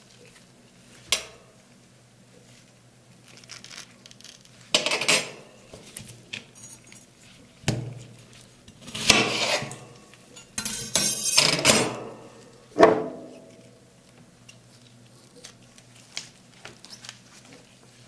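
Metal spatulas scraping and tapping on a steel cold plate while making rolled ice cream: a sharp tap about a second in, then several scrapes with pauses between them, and a clank near the end.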